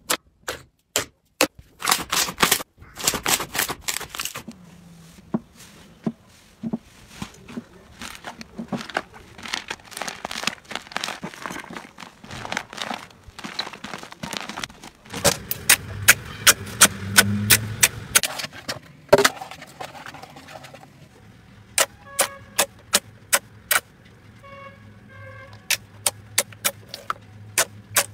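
Hands pressing, squeezing and kneading slime, making quick runs of sharp, crisp pops and clicks.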